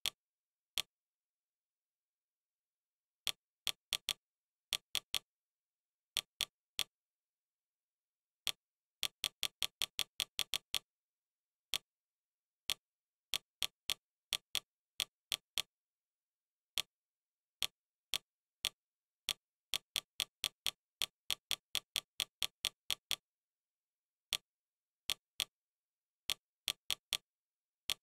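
Fire TV interface click sounds, one short click for each press of the remote's direction buttons as the selection steps through menu tiles. They come in uneven runs, quickest about ten seconds in at around five clicks a second.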